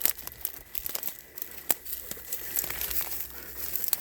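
Footsteps crunching through dry dead leaves and brush, with irregular crackles and snaps.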